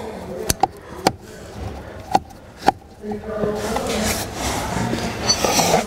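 Several sharp clicks of hard plastic dash trim being handled and seated, then steady scraping and rustling as screws are driven back into the trim under the steering column with a hand screwdriver.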